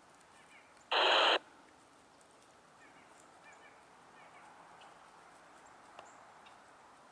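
A single loud, short bird call about a second in, with faint chirping of other birds scattered through the rest.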